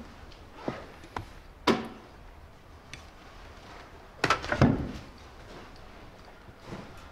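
A few sharp knocks about half a second apart, then a louder burst of knocking and clattering about four seconds in, like something hard being bumped or moved.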